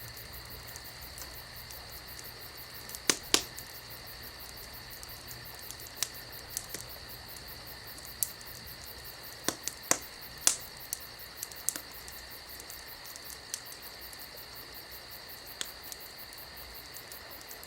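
Wood fire crackling, with sharp irregular pops, the loudest a pair about three seconds in and a cluster around ten seconds. Beneath it runs a steady high-pitched trill.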